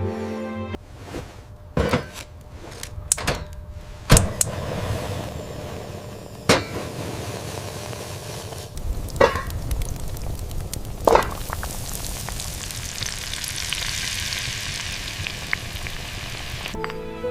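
Food frying in a hot pan, punctuated by about five sharp knocks; the sizzling swells louder in the last few seconds.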